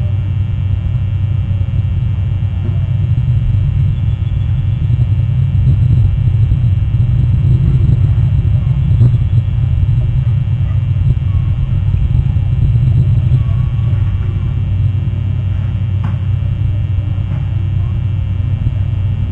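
Steady low rumble of wind on an outdoor tree-top nest-camera microphone, swelling a little in the middle.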